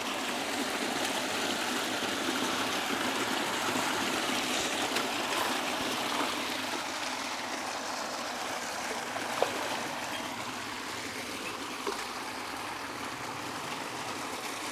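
Steady rush of stream water pouring into a creek, with a couple of faint ticks near the middle.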